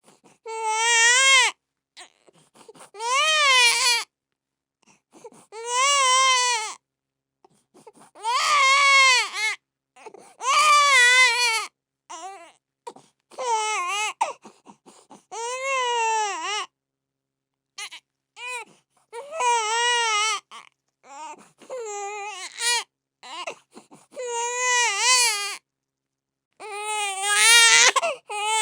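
A baby crying in repeated wails, each one to two seconds long, the pitch rising and falling within each cry, with short catches of breath between them.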